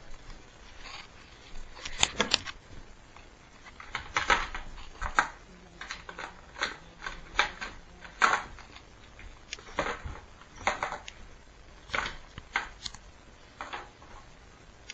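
Dogs pawing and nosing at a plastic milk crate to get bones out from under it: irregular scrapes and clatters, one or two a second.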